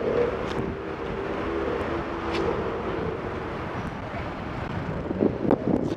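Car engines in nearby city traffic, heard from a moving bicycle, with wind on the helmet-camera microphone. A few sharp knocks come about five seconds in.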